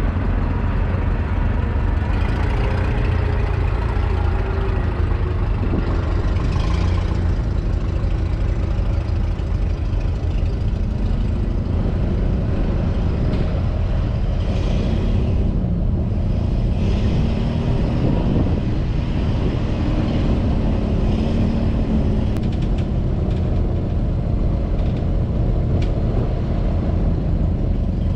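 A vehicle's engine running steadily while driving, a continuous low rumble.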